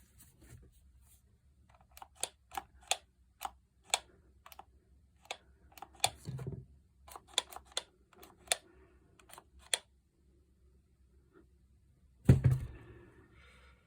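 Sharp irregular clicks and taps of tools and parts being handled while an electric demolition hammer is taken apart, with a heavier knock about twelve seconds in.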